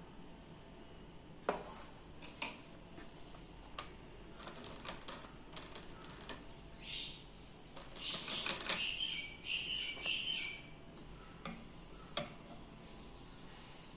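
Light clicks and taps of a paintbrush against a plastic paint palette and a small glass jar as fabric paint is mixed. About eight to ten seconds in comes a louder run of quick clicks with a high squeaky sound.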